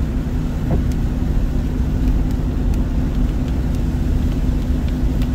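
Steady low rumble of a car driving on a wet road, heard from inside the cabin, with a constant engine hum and a few faint ticks.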